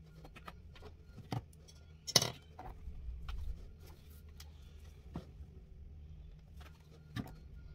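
Small clicks and knocks of makeup brushes and an eyeshadow palette being handled, with a louder clatter about two seconds in, over a low steady hum.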